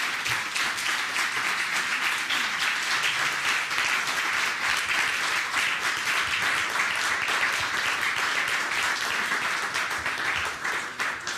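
Audience applauding steadily, the clapping thinning out near the end.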